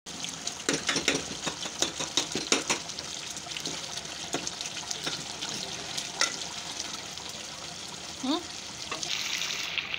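Liver masala sizzling and bubbling in an aluminium pot while a spoon stirs it, clinking and scraping against the pot, with the knocks thickest in the first three seconds.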